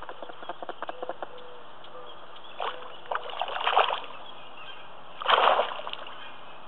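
Spawning carp splashing and thrashing in shallow, weedy margin water. There is a brief splash about two and a half seconds in, then a flurry of splashes, and the loudest splash comes near the end.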